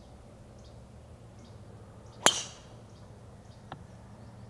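One sharp crack about two seconds in, and a much fainter click a second and a half later, over a faint outdoor background with scattered bird chirps.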